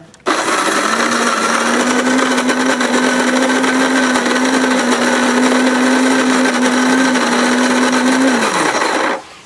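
Capresso flat burr coffee grinder grinding beans at a middle grind setting. The motor starts just after the beginning, runs with a steady hum and grinding noise for about eight seconds, then is switched off and winds down near the end.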